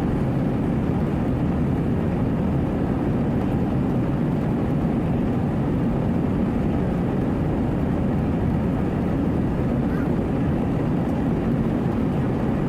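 Steady low drone inside the cabin of an Airbus A320-232 climbing out after takeoff: the noise of its IAE V2500 engines and the airflow around the fuselage.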